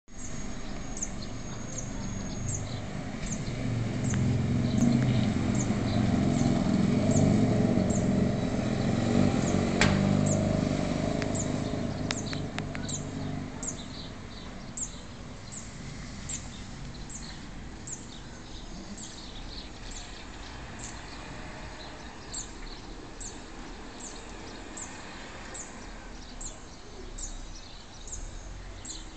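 A motor vehicle passing by, its low engine rumble swelling over the first few seconds and fading away by about halfway through. A bird repeats a short high chirp about once a second throughout.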